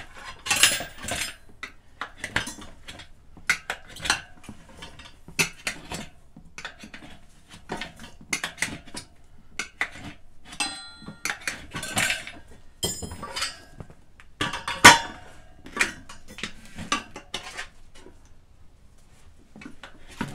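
Steel tire irons levering a dirt bike tire bead off the rim of a rear wheel: irregular metallic clinks, clanks and scrapes as the irons strike each other and the rim, a few ringing briefly, with one sharp clank about three quarters of the way through.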